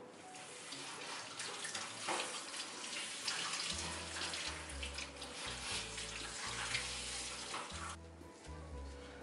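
Water spraying from a handheld shower head onto a small dog's wet coat and splashing into a stainless steel tub, a steady hiss that cuts off near the end.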